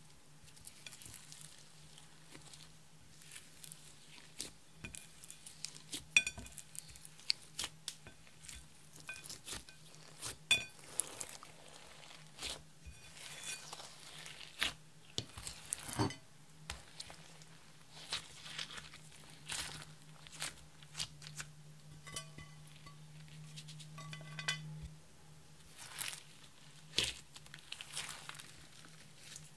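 Hands kneading and stretching clear slime packed with glitter and star sequins in a glass bowl: irregular sticky crackles, pops and little clicks as the slime folds and pulls apart.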